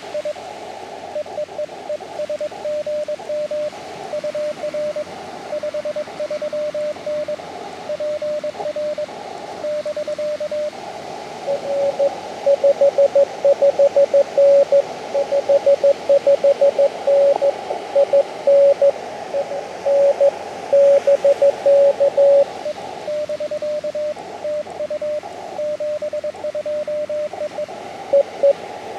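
Morse code (CW) from an Elecraft KX2 ham transceiver: a medium-pitched beep keyed in dots and dashes. About eleven seconds in, a louder, slightly lower-pitched signal takes over above a band of receiver hiss and runs until a little past the middle. The first signal then returns, and the louder one comes back near the end.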